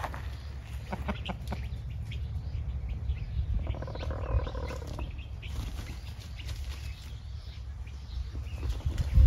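Backyard chickens foraging, with one drawn-out call from a hen or rooster about four seconds in and faint scratching clicks, over a steady low rumble.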